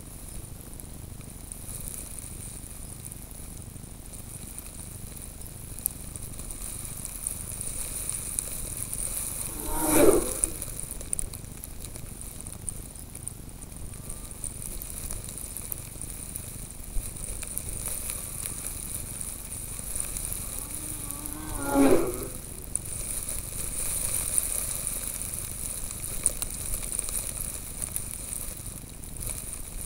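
Racing snowmobile engines passing the camera twice, each a brief loud sweep that falls in pitch as the sled goes by, about twelve seconds apart, over a steady hiss.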